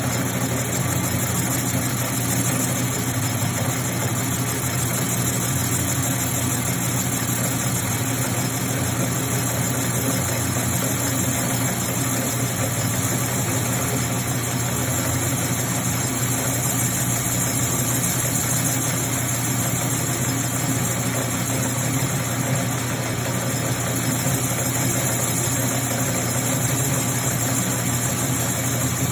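Metal lathe running steadily with its spindle turning a steel workpiece, a constant low hum over even machine noise.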